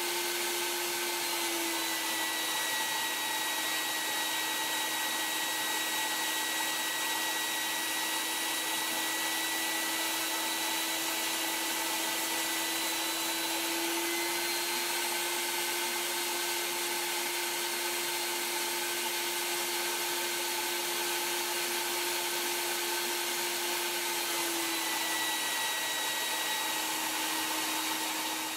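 Shop vac motor running steadily with a whine, its hose driving a Lego four-cylinder air engine that turns a wheel as a load; the whine shifts slightly in pitch a few times.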